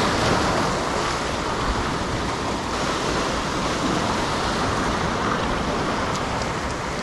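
Sea waves breaking and washing against a rocky shore: a steady rush of surf.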